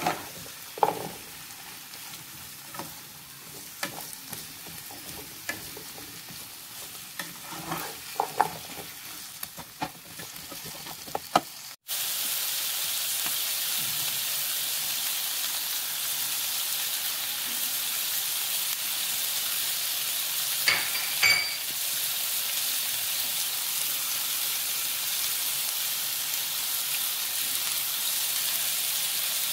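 Sliced carrots, potatoes and onion frying in a pan. For the first twelve seconds or so a slotted spatula stirs them, tapping and scraping against the pan over a quieter sizzle. Then the sound cuts to a louder, steady sizzle, with a couple of knocks partway through.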